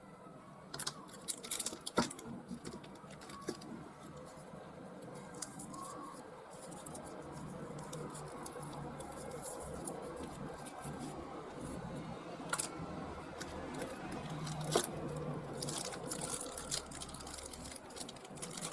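Hands handling small objects at close range: rustling, with sharp clicks and taps, a cluster of them about a second in and single ones later, over a faint steady low hum.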